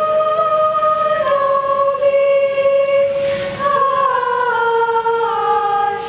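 Children's choir singing a cappella: slow, long-held notes that step downward in pitch.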